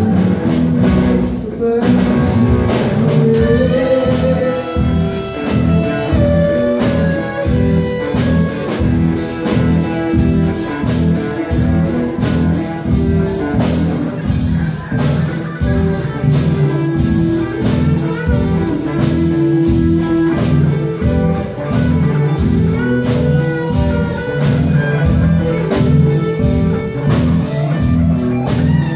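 Live rock band playing an instrumental passage: electric guitars and bass guitar over a drum kit keeping a steady beat.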